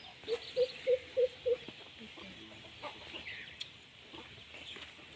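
A chicken clucking: five short, evenly spaced clucks in quick succession, about three a second, over a steady high-pitched background hiss.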